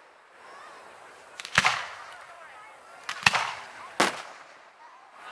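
Aerial fireworks shells bursting: three sharp bangs, about one and a half seconds in, about three and a quarter seconds in and just after four seconds, each trailing off in a short echo.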